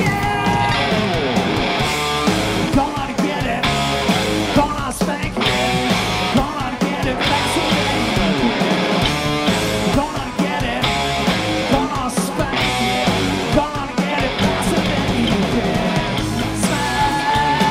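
Live hard-rock band playing loud: distorted electric guitar, bass and a drum kit driving a steady beat with cymbal crashes.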